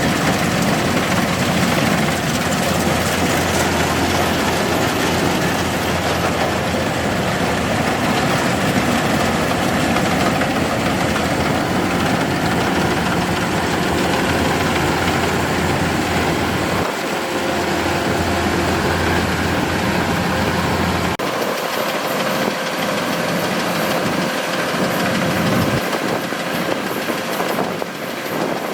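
Kubota DC-105X combine harvester's diesel engine running steadily with a deep hum and mechanical clatter; about three-quarters of the way through the deep hum drops out, leaving a lighter, noisier machine sound.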